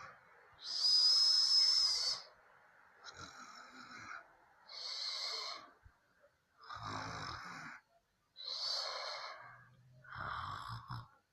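A woman snoring in her sleep: six noisy breaths, each about a second long, spaced every second and a half to two seconds. The first and loudest carries a high whistling tone, and several later ones have a low rattle under them.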